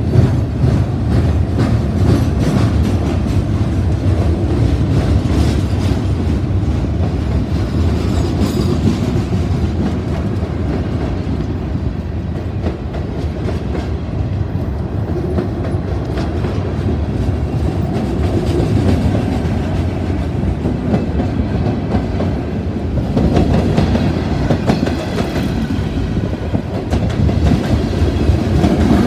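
Freight train of boxcars rolling past at close range: a steady heavy rumble with the rapid clickety-clack of steel wheels over the rail joints.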